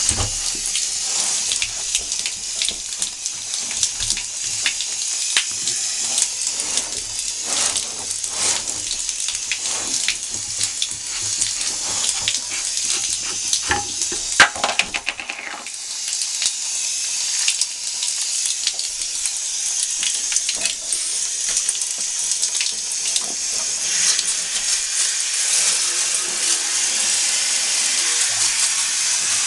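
Water running from a handheld shower head and splashing onto a cold fogger in a bathtub, with knocks and rubbing as the unit is handled and scrubbed with a sponge. A sharper knock comes about halfway through.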